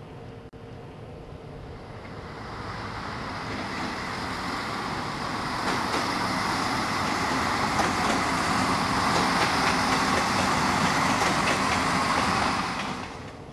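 A train moving through a station, its rushing noise building over several seconds to a steady level, then cutting off suddenly near the end.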